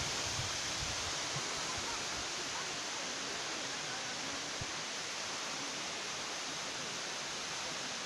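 Steady rushing hiss of falling water from a waterfall.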